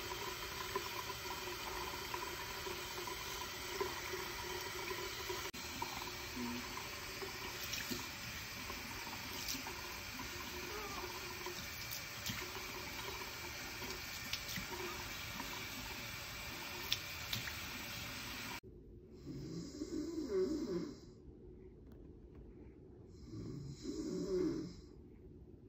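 Tap water running steadily from a faucet into a sink while a newborn's hair is rinsed under the stream. After a cut, a sleeping newborn makes two short noisy breaths a few seconds apart.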